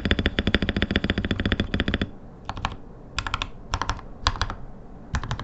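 Mechanical keyboard typing on a T-Dagger Bora with Gateron Pro Yellow KS-9 linear switches lubed with 205g0 and PBT keycaps. A fast, continuous run of keystrokes lasts about two seconds, then comes short clusters of three or four keystrokes about every half second.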